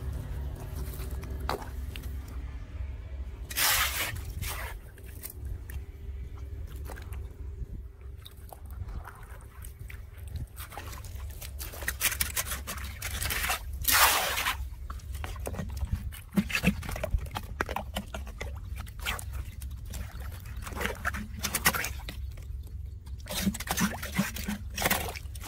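A small hand rake scraping and splashing in shallow floodwater as leaves and debris are pulled from a blocked curb drain opening. Sharp scrapes and splashes come every few seconds over a steady low rush.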